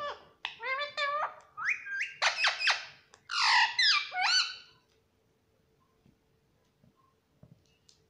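Indian ringneck parrot calling to its reflection: a quick run of high, pitched chirps and squawks, some rising and falling, that stops about five seconds in.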